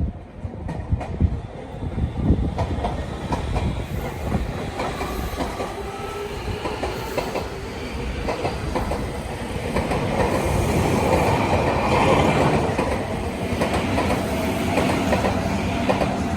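Tobu Railway electric train running through the station, its wheels clicking over rail joints, with steady running noise that grows louder past the middle.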